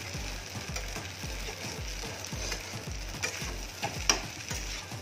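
Metal spatula stirring and scraping pasta and vegetables in an aluminium kadai over the flame, with a steady frying sizzle. A few sharp clinks of the spatula against the pan come about three to four seconds in.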